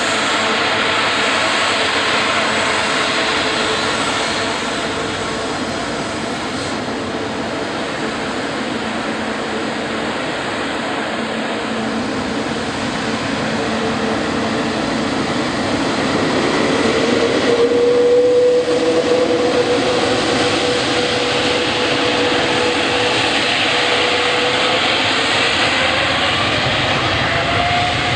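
Boeing 787-8 airliner's Rolls-Royce Trent 1000 jet engines: a steady loud rush with whining tones that slowly glide in pitch, loudest about two thirds of the way through.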